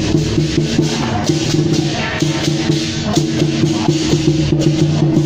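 Taiwanese temple-procession percussion: drums and cymbals beaten in a dense, driving rhythm over a steady held low tone.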